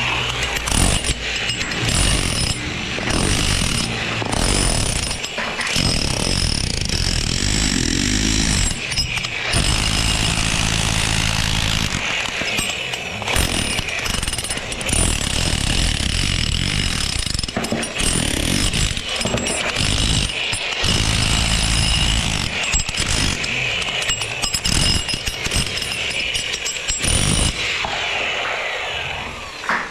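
Construction-site power tools and machinery running loudly, with many irregular knocks and clatters and several abrupt breaks in the noise.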